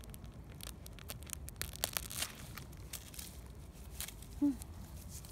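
Wild onion clump being pulled up by a gloved hand: dry leaf litter crackling and roots snapping and tearing out of the soil, with a burst of snaps about two seconds in. A short low voice sound, like an effort grunt, about four and a half seconds in.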